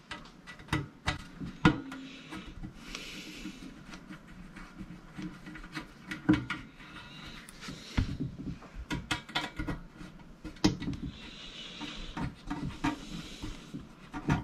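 Screws being taken out of a 1990s Select by Qupix car amplifier's metal case so the cover can come off: scattered clicks, taps and handling knocks, with two longer raspy stretches of scraping, one about three seconds in and one about eleven seconds in.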